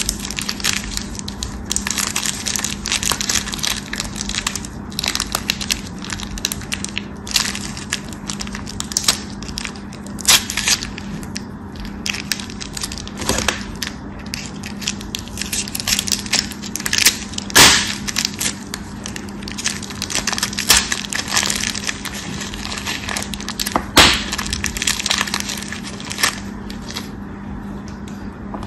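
Paper soap wrapper crinkling and crackling as it is worked open and cut with a blade, with a dense run of small crackles and a few louder sharp cracks. Near the end, dry bar soap is broken into pieces. A steady low hum runs underneath.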